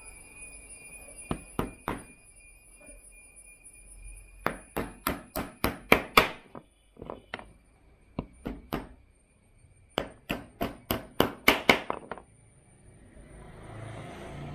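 Small hammer tapping a small nail into a wooden mould box. There are two single taps, then runs of quick, light taps at about four or five a second, and the hardest blows come at the end of each run.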